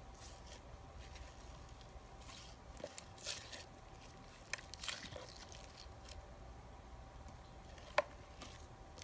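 Blue icy slime, slightly sticky, being stretched and squeezed by hand: faint squishing and crackling in short spells, with one sharp click about eight seconds in.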